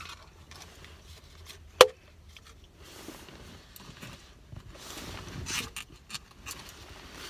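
Handling noises as a dessert cup and spoon are put away: one sharp click a little under two seconds in, then soft rustling.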